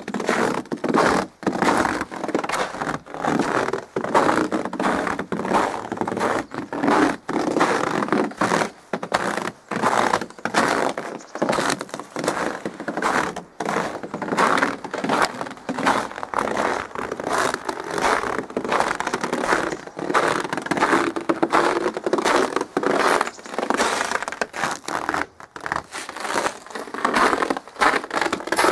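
Footsteps crunching in crusty snow, one step after another at a steady walking pace.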